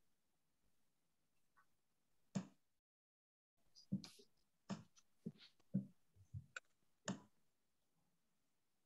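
Near silence on a video-call line, broken by a scatter of faint short sounds: one about two and a half seconds in, then a run of several more over the next few seconds.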